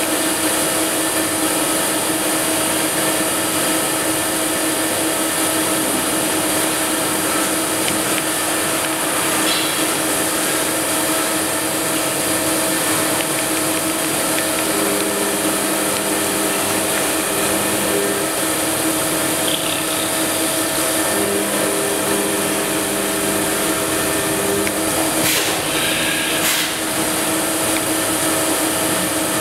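CNC machining centre milling a pneumatic actuator body under flood coolant: a steady machine whine over the hiss of cutting and coolant spray. A lower hum comes and goes twice in the second half, and two sharp clicks sound near the end.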